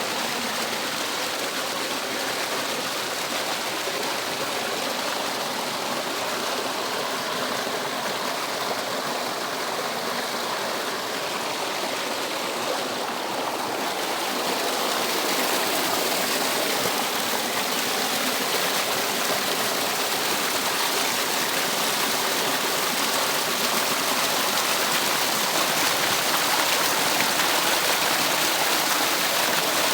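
Water rushing down a cascade in a stream, a steady rushing sound that grows slightly louder about halfway through.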